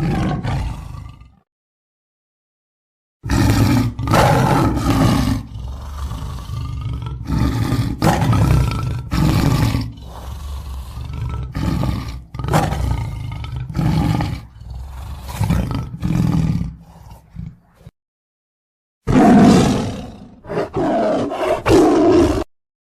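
Lion roaring in bouts: a short call, then a long series of deep roars and grunts that weakens toward its end, then a fresh loud bout near the end. The bouts are separated by stretches of dead silence.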